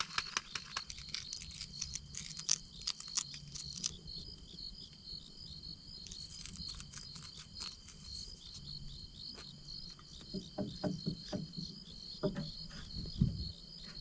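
Crickets chirping steadily in an even, rapid pulse. Over it, a spatter of sharp clicks in the first few seconds and a few soft low knocks near the end.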